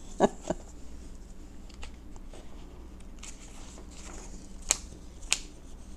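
Sheets of paper rustling as they are shuffled and gathered on a tabletop, in soft scattered rustles, with two sharper paper crackles near the end.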